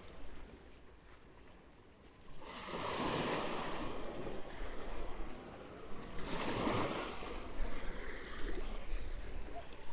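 Sea waves breaking and washing up the shore. It is quiet for the first two seconds, then one wave surges in about two and a half seconds in and another about six seconds in.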